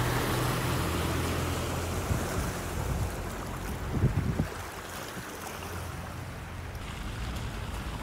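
Steady rushing of water, with wind rumbling on the microphone underneath and a brief louder burst about four seconds in.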